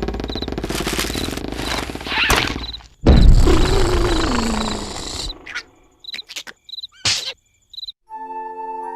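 Cartoon soundtrack: crickets chirping in a regular pulse over a noisy background, then a sudden loud burst about three seconds in with a voice-like tone sliding down in pitch, which fades away. A few short clicks follow, and a held musical chord begins near the end.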